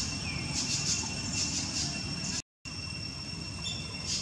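Outdoor insect chorus: a steady high-pitched whine with rhythmic pulses of shrill chirring. There is a faint falling bird chirp near the start. The sound drops out briefly in the middle at an edit.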